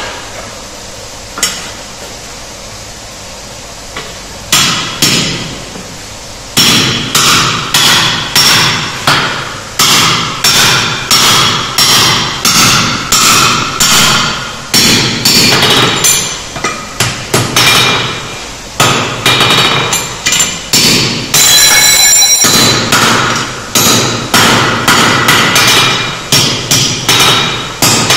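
Blacksmith's hand hammer striking hot steel on an anvil, driving a square hole punch into a red-hot bar. A few single knocks at first, then steady ringing blows about two a second, one of them ringing on for about a second.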